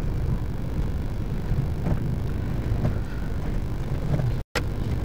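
Steady low rumble of a moving vehicle on a rough dirt road, with wind noise on the microphone. The sound cuts out to silence for an instant about four and a half seconds in.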